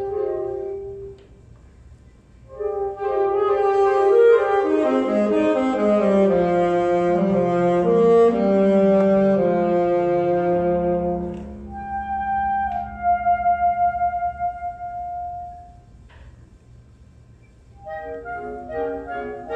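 Alto saxophone soloist with a symphonic wind band playing live. A held chord fades into a short lull, the full band enters with a descending low line, then a single held note pulses before another pause, and quick moving notes start near the end.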